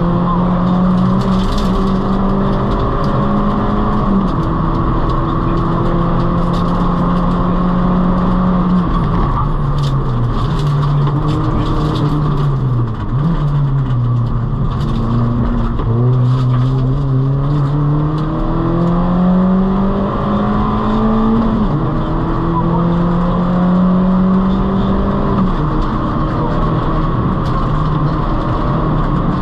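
Peugeot 206 Rally Cup car's engine heard from inside the cabin, driven hard: the pitch climbs through each gear and drops sharply at every upshift. About twelve seconds in it falls away as the car slows for a junction, then climbs again through the gears.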